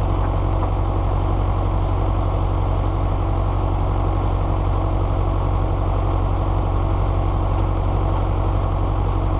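Fordson Power Major tractor's four-cylinder diesel engine running steadily, freshly started.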